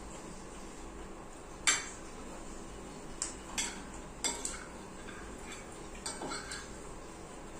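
Spoons and forks clinking and scraping against bowls and plates as two people eat: a handful of sharp clinks, the loudest about two seconds in and a small cluster near the end.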